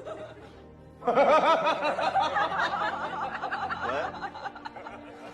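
A quick run of short, laughter-like calls that rise and fall, starting about a second in and thinning out about four seconds in, over background music.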